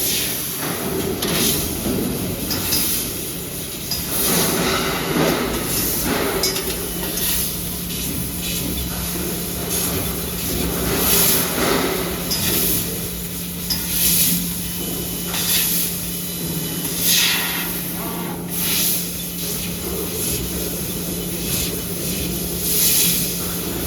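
6012VF tube laser cutting machine running, a steady mechanical noise with short hissing surges every second or two and a low steady hum that comes in about six seconds in.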